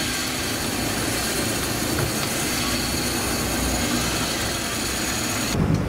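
Sport-fishing boat's engine running steadily under a constant hiss. Near the end the sound changes abruptly: the hiss drops away and a deeper rumble takes over.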